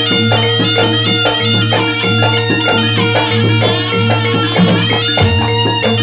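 Jaranan gamelan music: a reedy shawm-type trumpet (slompret) plays a fast ornamented melody over a steady low drone and sustained gong-like tones, with light drumming.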